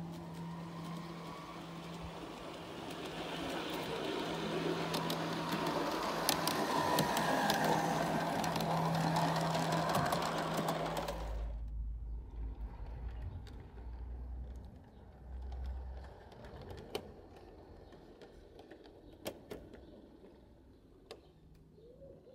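A pair of Accucraft County Donegal garden-scale railcars running on 45 mm track: a steady electric motor hum with wheel rumble and scattered clicks from the rails, growing louder as they come close. About halfway through it cuts off suddenly, leaving a quieter rumble and occasional clicks.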